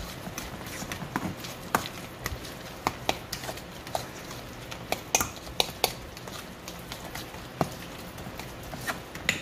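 A utensil stirring a thick ricotta, cheese and egg mixture in a stainless steel mixing bowl, clinking and scraping against the metal in an irregular run of sharp knocks.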